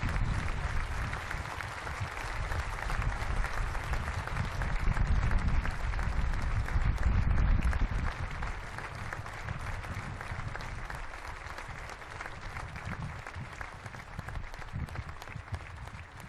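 A large crowd applauding, dense rapid clapping that grows loudest about five seconds in and then slowly fades.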